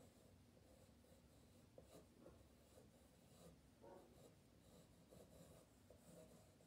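Faint scratching of a woodless graphite pencil drawing on paper, in irregular strokes.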